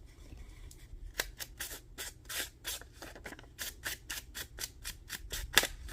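Hand work on paper: a quick, uneven series of short scratchy strokes, about four a second.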